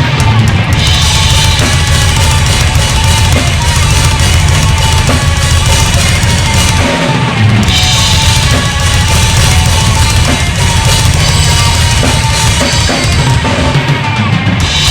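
Drum kit with bass drum and snare driving a loud heavy rock song with the full band. There is a short break in the low end about seven seconds in, after which the cymbals get brighter.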